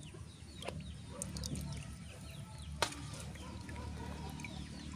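Short bird chirps repeating over a low rumble, with one sharp click a little before three seconds in.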